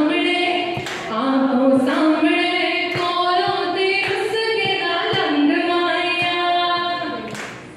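A woman singing solo into a handheld microphone: long held notes that waver in pitch. The last phrase tails off near the end.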